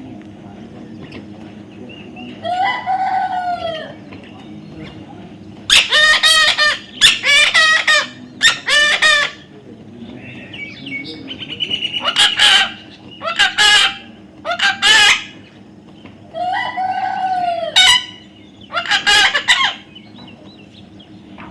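A bird calling loudly: about nine drawn-out calls in groups, one alone, then three close together, three more, and two near the end, some rising and then falling in pitch.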